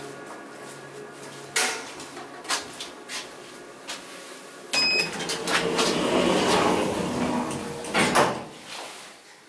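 SMW inclined elevator's sliding car doors closing after a short beep at the button press, running for about three and a half seconds and ending with a clunk as they shut. A few knocks come before the beep.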